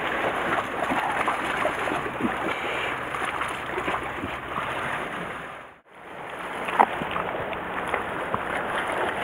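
Sea waves washing against a rocky shore, a steady rushing. It drops out briefly about six seconds in, and there is a single sharp click a second later.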